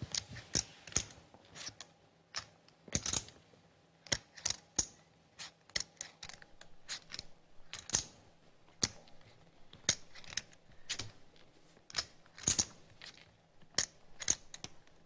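Poker chips clicking together at the table in irregular sharp clicks, a few a second, with some clicks louder than others.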